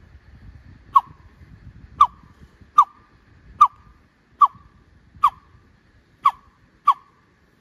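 A bird guide imitating a bird call by mouth through cupped hands, to draw forest birds out: eight short, loud notes that each drop quickly in pitch, evenly spaced a little under a second apart.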